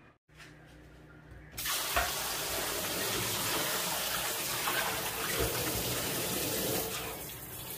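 Water running and splashing in a stainless steel kitchen sink while a pot of soaked pork backbones is rinsed and tipped out. It starts about a second and a half in, with a couple of knocks of the pot against the sink.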